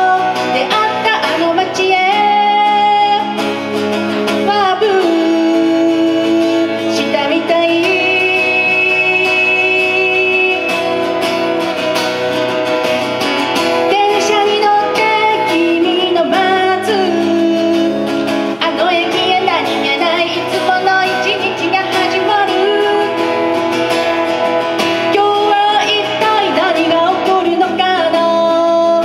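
A woman singing a song in Japanese live, accompanying herself on a strummed acoustic guitar.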